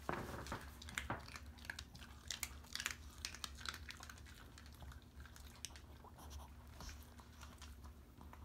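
Dog chewing and crunching food close to the microphone: irregular crunches and clicks, busiest in the first few seconds and thinning out after that.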